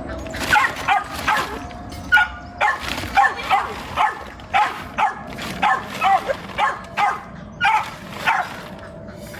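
Dogs barking and yipping in short excited calls, about two a second.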